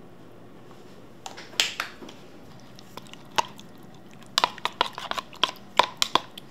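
A metal spoon stirring duck pieces in a thick marinade, clinking and scraping against the bowl: a few separate knocks, then a quick run of clicks from about four seconds in.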